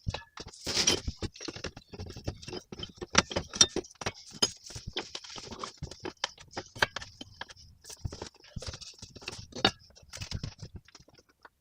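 Irregular small clicks, taps and rattles from hands working on an old bird feeder with tools and small parts, with no steady rhythm.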